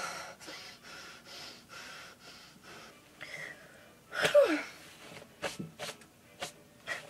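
A woman breathing hard in short, breathy puffs about twice a second, then a louder blowing exhale that drops in pitch about four seconds in. A few sharp taps follow near the end.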